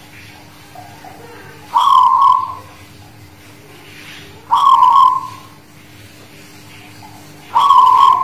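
Zebra dove (perkutut) cooing its song: three calls about three seconds apart, each lasting about a second, the last cut off at the end.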